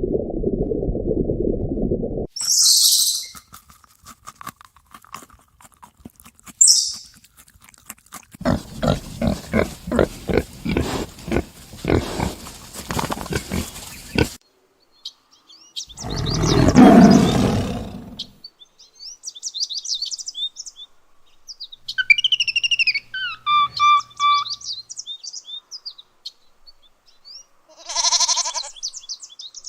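A run of separate animal sounds one after another: high squeals, a quick series of short repeated calls lasting several seconds, a loud low call of about two seconds, bird chirping, and near the end a goat bleating.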